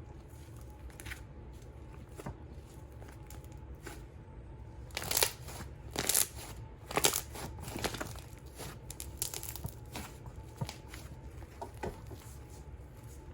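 Thick clear slime being inflated and worked by hand, giving sharp pops and clicks. The loudest come as a run of several about five to eight seconds in.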